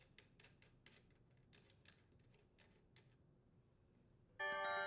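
Faint, rapid clicking of a ratchet turning a 13mm socket to take off the nuts, about five clicks a second, stopping about three seconds in. Music with bell-like tones comes in near the end.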